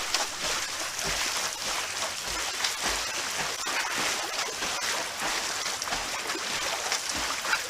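Swimmers splashing through pool water: a steady wash of churning water with many small splashes.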